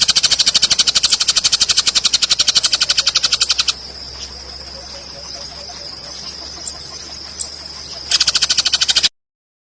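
An animal's loud, rapid pulsed trill at about a dozen pulses a second, in two bouts, with a steady high-pitched whine between them; it cuts off abruptly near the end.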